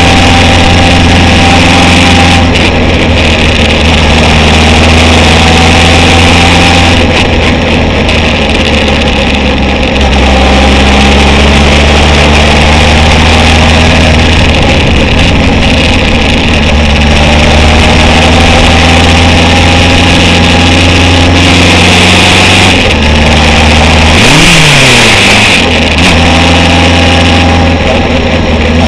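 Honda CB750 chopper's air-cooled inline-four engine running under way, heard from on the bike with wind noise over it. About four-fifths of the way through, the engine note swoops up and back down briefly.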